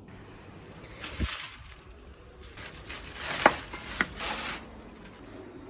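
Thin plastic carrier bag rustling as a hand rummages in it, with two sharp clicks about a second apart near the middle.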